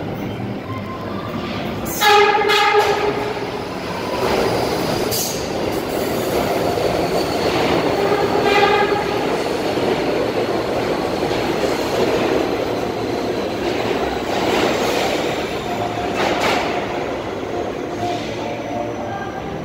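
R68 subway train running through the station without stopping. It sounds its horn about two seconds in for about a second and briefly again around the middle. The wheels rumble and clatter on the rails as the cars pass.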